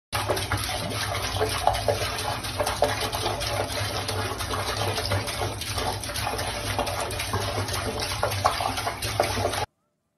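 Water running steadily from a faucet and splashing into the basin below. It cuts off abruptly near the end.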